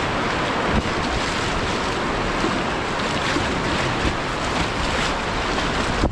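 Rushing whitewater heard from a kayak running a narrow rock gorge: a steady wash of moving water, with wind buffeting the microphone.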